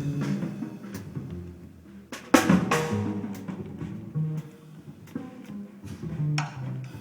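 Jazz trio playing: drum kit hits on bass drum and snare over low double bass notes, with one loud cymbal crash about two and a half seconds in.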